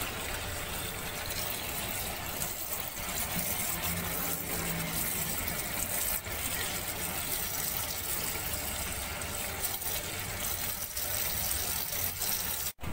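Kitchen tap running into a stainless steel bowl of chopped water spinach in a sink, a steady splashing stream as a hand stirs and rinses the leaves. The sound cuts off suddenly just before the end.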